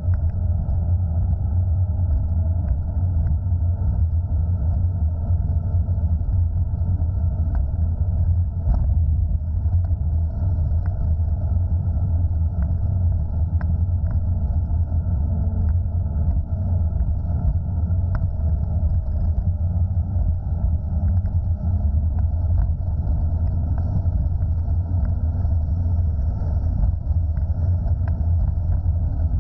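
Steady low rumble of wind buffeting the microphone and road noise while riding an electric scooter at speed, with a few faint clicks.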